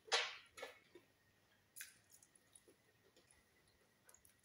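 Wet, squishy eating sounds: mouth smacking while chewing soft food, loudest just after the start and again about half a second later, with a sharp smack near two seconds in and a few faint clicks after.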